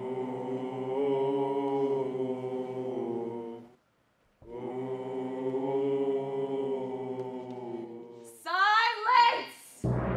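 Choir singing long, held chant-like chords in two phrases with a short silent break between them. Near the end a voice sweeps sharply upward in pitch several times, the loudest part, and a deep steady drone starts just at the close.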